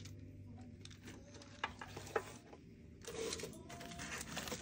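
Faint handling sounds as a silicone reborn doll is turned over on a surface of paper and plastic wrap: two light clicks about a second and a half and two seconds in, then a brief rustle. A low steady hum sits under the first half.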